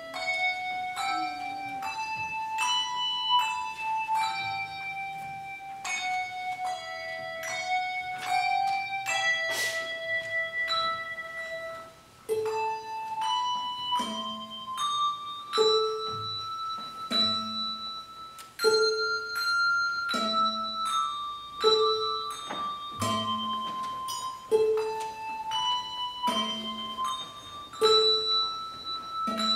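Two handbell ringers playing a slow melody in A minor, one ringing note after another. From about twelve seconds in, a lower note repeats about every second and a half beneath the tune.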